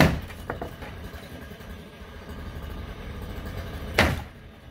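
Two loud crashes about four seconds apart, with a smaller knock half a second after the first: the garage structure being struck or broken apart in demolition. A steady low engine rumble runs underneath.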